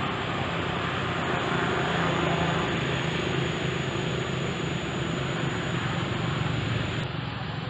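Steady background noise: an even hiss over a low hum, with a faint constant high-pitched whine.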